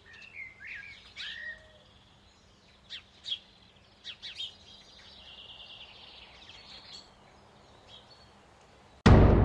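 Birds chirping and calling, short chirps and whistled notes coming every second or so. About nine seconds in, a sudden loud hit cuts in and begins to die away.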